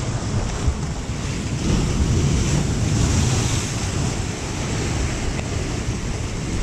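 Ocean surf breaking and washing over jetty rocks, with wind buffeting the microphone; the wash swells a little about two seconds in.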